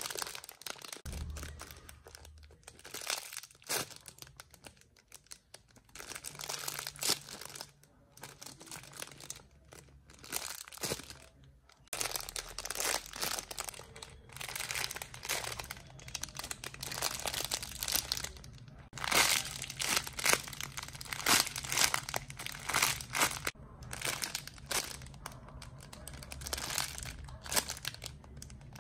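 Crinkling and rustling from squishy toys being handled and squeezed, in irregular bursts.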